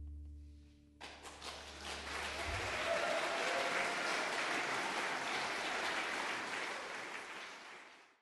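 A live band's last low note dying away, then an audience applauding from about a second in, steady and fading out near the end.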